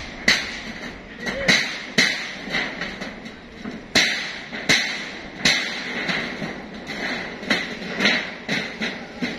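Hammer blows on steel roof framing: irregular strikes about once or twice a second, each with a short metallic ring.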